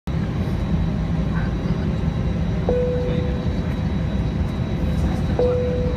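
Airliner cabin rumble on the ground, the jet engines running steadily as heard from inside the cabin. A steady hum cuts in with a click twice, about halfway through and again near the end.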